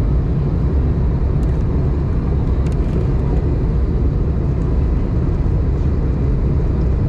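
Steady low rumble inside the cabin of an Airbus A320 in flight: engine and airflow noise heard through the fuselage.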